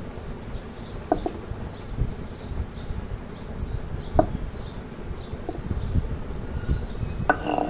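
Hands mashing boiled jackfruit seeds against a grinding stone, with soft repeated rubbing and scraping strokes. A few short bird calls sound about three seconds apart, the loudest near the end.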